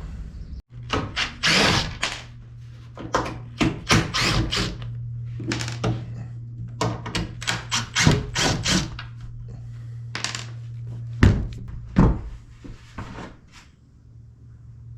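Irregular series of wooden knocks and thunks as wooden parts are handled and set down, with a low steady hum under most of it that stops about 11 seconds in.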